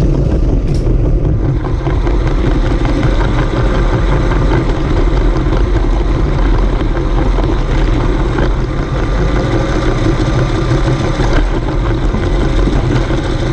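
A Lego train's small electric motor and wheels running steadily along plastic track, heard close up from a camera riding on the train: a continuous whirring, rattling hum.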